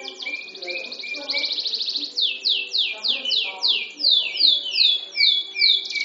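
Domestic canary singing: a fast rolling trill, then a run of loud downward-sweeping whistled notes, two or three a second.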